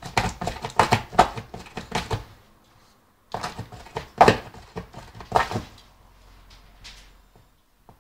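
A dog chewing and tearing cardboard: two spells of rapid crunching and ripping, the second starting about three seconds in, then only faint crackles near the end.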